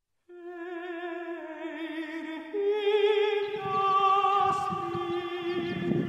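Music: a solo voice singing long, held notes in an operatic style with strong vibrato, starting just after the beginning. About halfway through it grows louder and fuller as a rougher, lower layer joins underneath.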